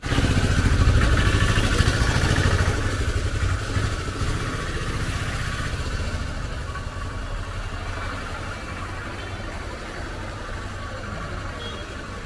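Street traffic with a small vehicle engine running close by. It is loudest in the first three seconds and then fades steadily as it moves away.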